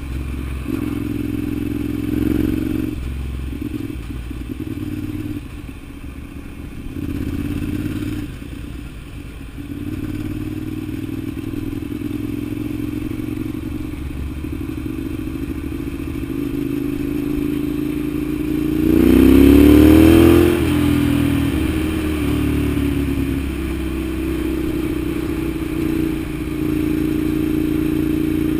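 Ducati Monster 795's air-cooled L-twin engine running under way, its note shifting with the throttle. About nineteen seconds in it revs up in a rising pitch, the loudest part, then drops back to a steady run.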